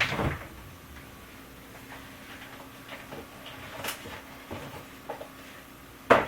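Kitchen things being handled: scattered light clicks and knocks over a faint steady hum, with a clatter at the start and one sharp, louder knock just before the end.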